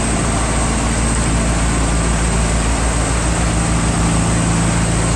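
Steady mechanical drone with a low hum under an even hiss, unchanging throughout.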